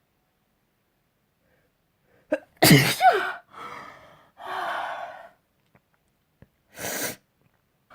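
A person sneezes once, loudly, about two and a half seconds in: a quick catch of breath, then the burst with a voiced cry falling in pitch. Two breathy breaths follow, and there is a short breathy puff near the end.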